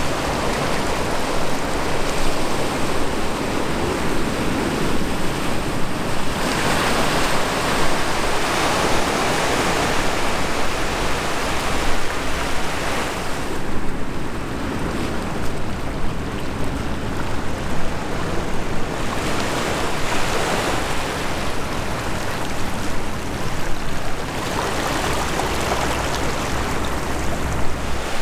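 Steady rushing noise of wind and sea water, swelling and easing every several seconds.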